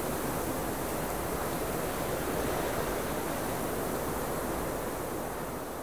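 A steady rushing noise with no pitch or rhythm, like wind or distant surf, beginning to fade out near the end.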